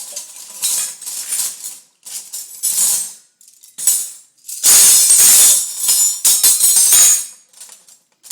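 A pile of metal spoons clattering and jangling in a series of bursts, the loudest and longest rush of clatter coming about halfway through and lasting a couple of seconds. A lot of noise.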